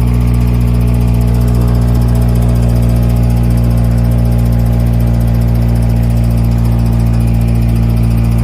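Sundance horizontal hammer-mill compost grinder running with a loud, steady low drone that holds unchanged throughout.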